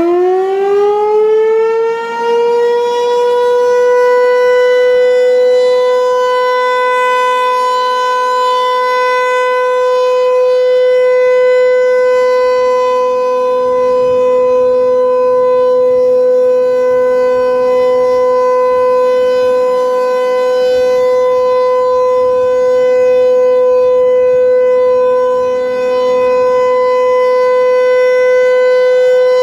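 Federal Signal 508 rotating electromechanical tornado siren sounding its steady alert signal. It finishes winding up in pitch within the first few seconds, then holds one loud, steady tone.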